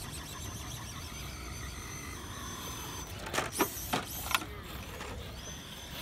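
Small electric motor and gear drive of an RC rock crawler whining as it climbs rock, with a thin steady high whine. A little after halfway the motor revs up and down twice in quick succession.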